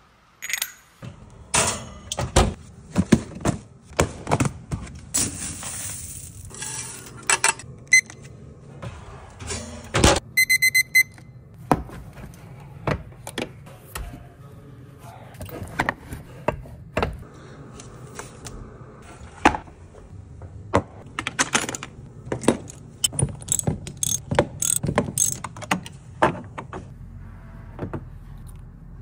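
Workshop clatter of metal on metal: aluminium mould halves clinking and knocking together and the clunks of a hand-lever plastic injection machine being worked, many separate sharp knocks throughout. A brief hiss comes around five seconds in, and a quick run of high electronic beeps about ten seconds in.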